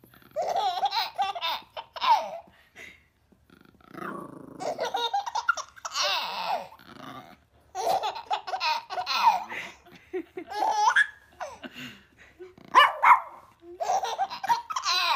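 Baby laughing and squealing in separate bursts of a second or two, with wavering pitch.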